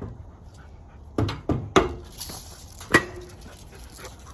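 Puppy panting hard, with four loud, sharp, short sounds between about a second and three seconds in.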